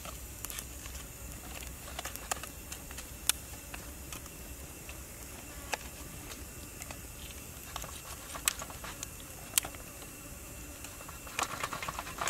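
Scattered sharp clicks and cracks of a knife and fingers working through a cooked king crab's shell and meat in a metal tray, with a quick run of them near the end, over a steady background hiss.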